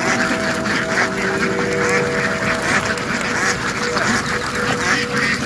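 A large flock of domestic ducks quacking, many calls overlapping into a continuous clamour. A few long held tones sound underneath for most of it.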